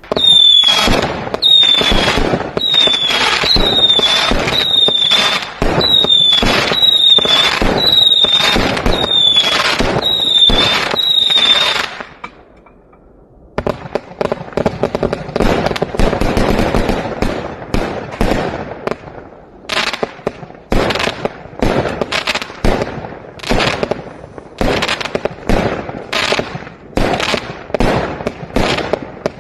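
A 168-shot consumer firework cake firing. For about the first twelve seconds it fires about one shot a second, each with a short whistle that dips slightly in pitch. After a pause of a second or two, it fires a dense run of rapid shots and crackling bursts.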